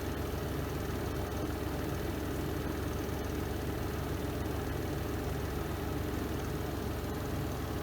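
Spin drum of a Renova semi-automatic twin-tub washing machine running steadily through its spin cycle: an even motor hum with a low drone that does not change.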